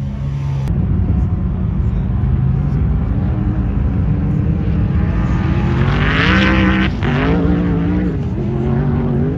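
Sand car engines accelerating hard, the pitch climbing as they rev up through the run, heard across several spliced clips with abrupt cuts about a second in and about seven seconds in.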